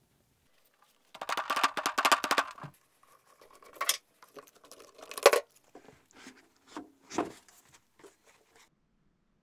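Bar clamps being released from a wooden sand-casting flask: a fast run of clicks about a second in, then a few separate knocks and scrapes of wood and sand as the flask is handled and opened.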